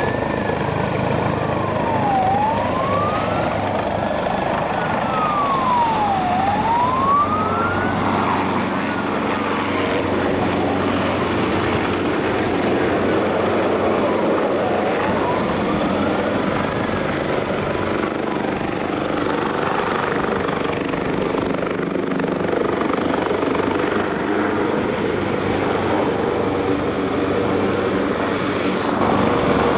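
AgustaWestland AW139 twin-turbine helicopter hovering and manoeuvring low overhead, its rotor and turbine noise running steadily. A fainter whistling tone slides slowly down and up over the first half.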